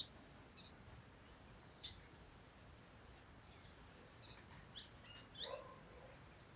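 Sunbird calling: two sharp, very high chirps about two seconds apart, then a quick cluster of short rising chirps near the end.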